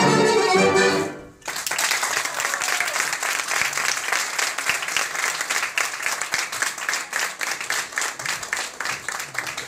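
Violin, clarinet and piano ensemble playing its final notes, ending about a second in. After a brief pause, an audience applauds.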